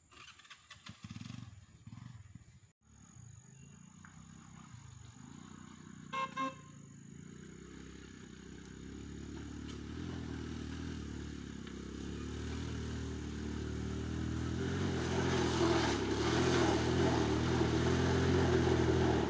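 Honda Dio scooter's small single-cylinder engine running as it comes down toward the listener, growing steadily louder. Two short horn beeps about six seconds in.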